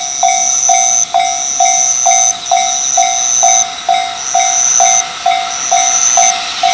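Japanese railway level-crossing warning bell ringing, a sharp repeated ding about two strokes a second, with a second, higher-pitched chime pulsing more slowly over it while the crossing is down for an approaching train.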